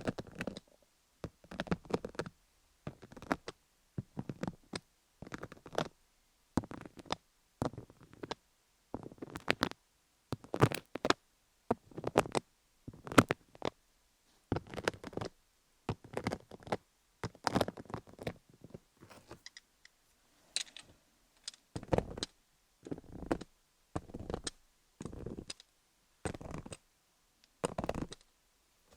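A microneedle (MTS) roller rolled in short strokes over a rhinestone-studded dummy-head microphone. Each stroke is a brief burst of scratchy clicking, about one a second, with near silence between.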